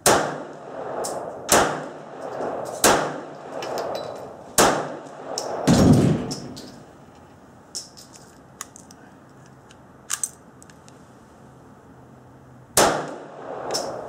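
Pistol shots from a P-64 in 9×18 mm Makarov: five sharp shots, each ringing briefly, over about five seconds, with a duller, deeper boom near six seconds in. Light metallic clicks follow, and one more shot comes near the end.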